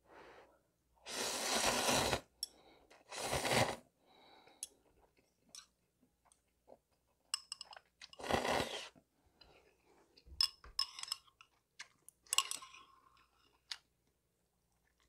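Ramen noodles slurped and chewed: three long slurps, the first about a second in, the second near three and a half seconds and the third about eight seconds in. Between them come chewing and light clicks of metal chopsticks against the metal bowl.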